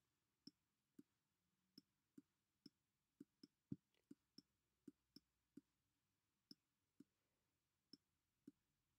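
Faint, irregular clicks, about two a second, of a stylus tip tapping a graphics tablet as words are handwritten on a digital whiteboard.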